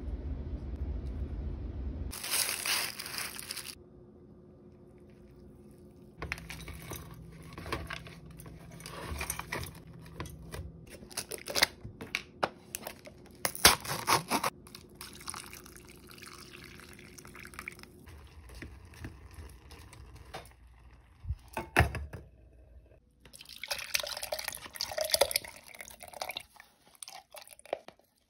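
A paper smoothie cup is handled and its plastic lid taken off, with scattered clicks and rustles. Near the end, water and chopped greens are poured from the cup into a blender cup, splashing and trickling.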